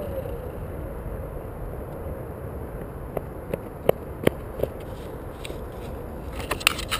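Propeller and motor of an RC de Havilland Beaver model winding down to a stop in the grass after landing, a brief falling tone, then a low steady rumble from wind on the microphone. Scattered sharp clicks and knocks follow, with a cluster near the end.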